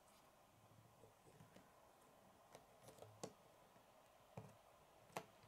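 Faint, scattered clicks and taps of Lego plastic as the mini fire truck's hinged ladder is swung up and the model is handled on a wooden tabletop. There are about six small clicks; the sharpest come about three and five seconds in.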